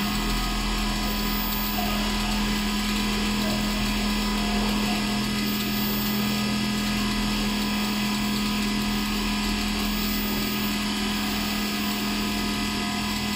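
Richpeace large-format automatic sewing machine with a rotary sewing head, stitching at a constant speed: a steady machine hum with a high whine above it, unbroken throughout.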